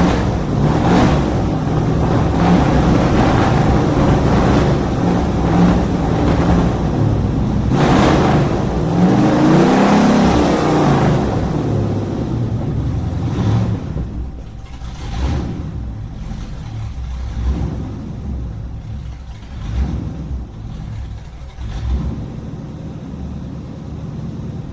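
Car engine running; about ten seconds in it revs up and back down, then settles to a quieter, uneven run for the rest.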